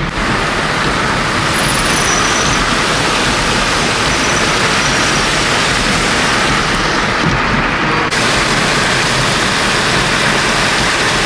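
Heavy downpour: a steady, loud hiss of rain, with car traffic driving and splashing through a flooded road. The sound changes abruptly about eight seconds in.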